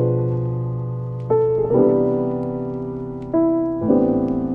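Background music: soft keyboard chords, held and changing every second or two.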